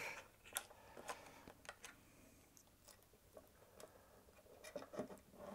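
Faint, scattered small clicks and taps of a screw and hex key being fitted into the back of a metal microscope display mount, with a few clicks in the first three seconds and a few more near the end.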